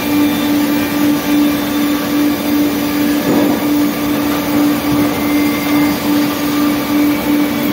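Circular-saw canter with two 45 kW saw motors sawing a log into beams and boards, its track-chain conveyor running. A loud, steady machine hum that pulses a few times a second over constant noise, with a short surge about three seconds in.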